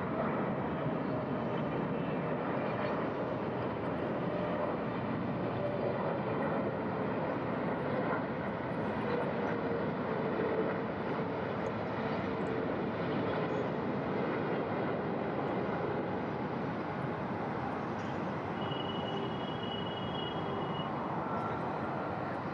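Jet airliner engines on approach to land, a steady rush of engine noise with a faint tone that slowly drops in pitch.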